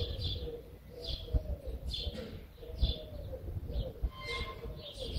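Birdsong: a dove cooing in a low, wavering tone, with a small bird's short chirps about once a second over it and a few low thumps.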